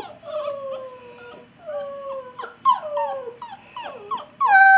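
Alaskan Noble Companion Dog puppy whining: a string of high, falling whimpers. Near the end comes a louder, longer falling cry.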